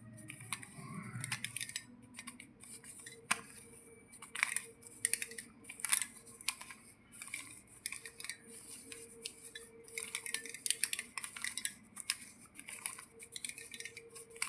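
Plastic 3x3 Rubik's cube being twisted by hand: a run of irregular sharp clicks and clacks as the layers turn.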